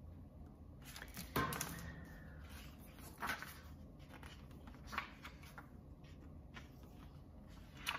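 A hardcover picture book being handled and opened: a few faint page rustles and soft taps.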